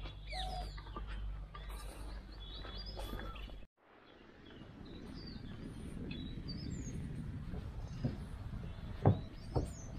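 Birds chirping over a steady outdoor background hum. A little over a third of the way in the sound cuts off abruptly, then a steady rushing background returns, with a few sharp knocks near the end.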